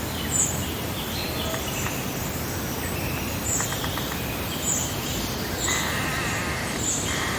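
Birds chirping and singing over a steady rush of breeze, with short high chirps every second or so.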